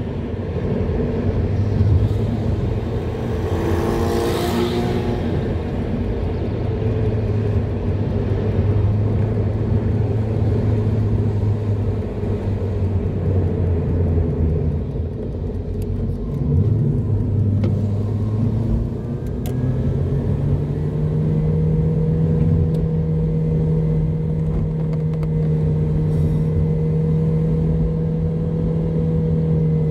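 Car engine running with road noise, heard from inside the cabin while driving. There is a brief whoosh about four seconds in, and about two-thirds through the engine note steps up to a higher steady pitch, as the car climbs a rise.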